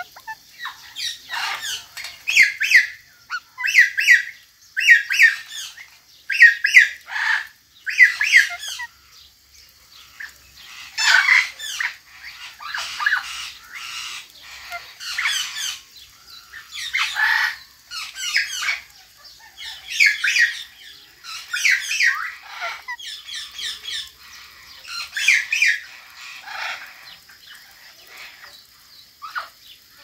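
Indian ringneck and Alexandrine parrots squawking and chattering: short sharp calls about once a second for the first several seconds, then longer runs of busy chatter with brief pauses, dying down near the end.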